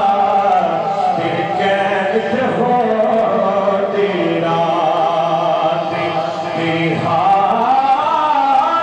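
A man singing a naat, an Islamic devotional song, into a handheld microphone in long held notes that bend and waver in pitch.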